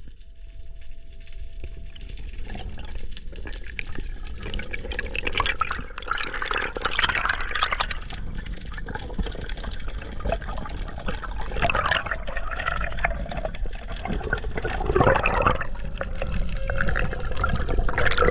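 Underwater sound picked up through an action-camera housing: water rushing and bubbling in irregular surges over a steady low rumble.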